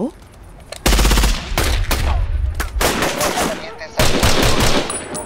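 Bursts of rapid automatic rifle fire in a night firefight, starting about a second in and coming again in several more bursts.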